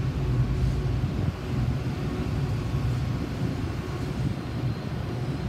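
Steady low rumble of a heavy engine running, with a faint steady hum above it.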